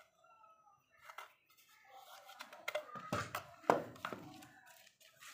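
Handling noise: cloth rustling against the microphone, with a few sharp clicks and knocks, the loudest close to four seconds in.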